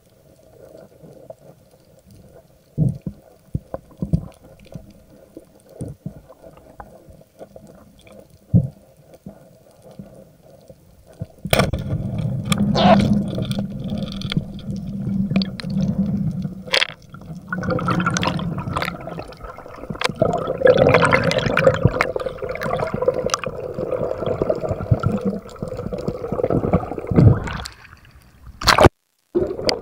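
Water sloshing and gurgling around a spearfisher's camera. For about the first ten seconds there are only scattered faint clicks, then from about eleven seconds in comes loud, continuous churning water with a few sharp knocks.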